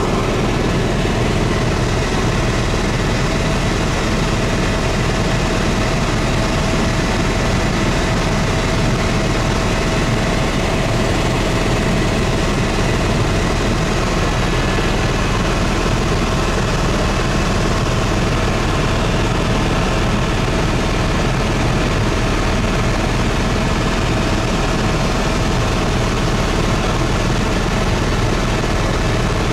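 Helicopter engine and rotor running steadily in level flight, heard from inside the cabin as a loud, even drone with a few faint steady tones in it.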